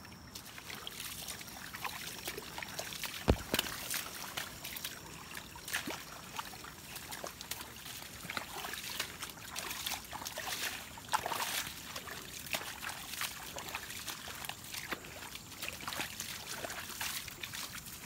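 Footsteps squelching and splashing through wet mud and shallow running water, in irregular steps, with one sharp knock about three seconds in.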